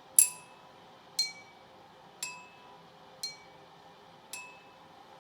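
A pencil crayon tapping five times, about once a second, on something that rings briefly, imitating a clock's tick-tock; the pitch of the ring alternates slightly between strokes.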